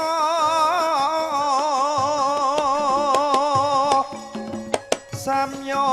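Javanese gamelan music: a singer holds long, wavering notes over sharp percussive strikes. The voice drops out about four seconds in, then the ensemble picks up again near the end.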